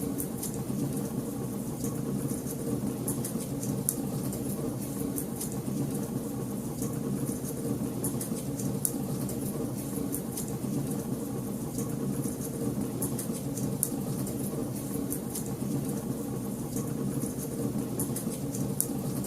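Wood fire crackling in a fireplace: frequent sharp snaps and pops, irregularly spaced, over a steady low rumble.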